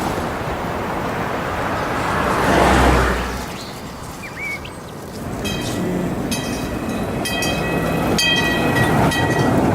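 Loud, steady rumbling noise that swells about three seconds in, then rapid, repeated high electronic tones sound over it from about halfway.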